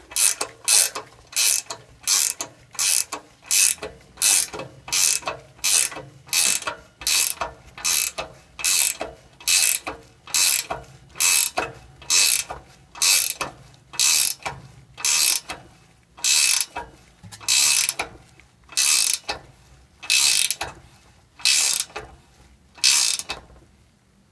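13 mm ratcheting wrench clicking on each back-swing, about three strokes every two seconds and slightly slower near the end. It is turning a pair of jammed nuts to thread a replacement exhaust stud into the oxygen sensor flange.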